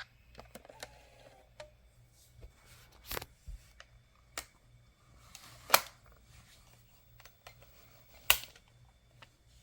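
Handling noise in a quiet room: scattered light clicks and knocks, with three sharper clicks about three, five and a half and eight seconds in.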